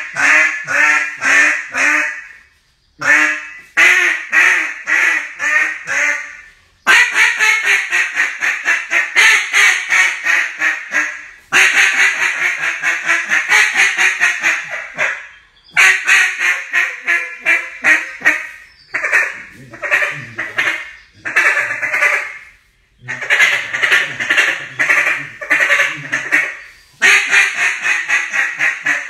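Mondo duck call blown in long runs of loud, rapid quacks, each run a few seconds long and broken by short pauses.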